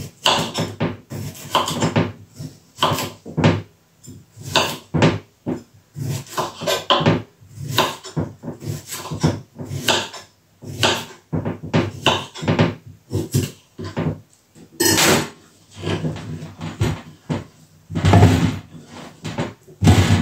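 Kitchen knife chopping cucumber on a wooden chopping board: a steady run of short chops, a couple a second. Near the end, heavier knocks and clatter as the pieces go into a stainless-steel bowl.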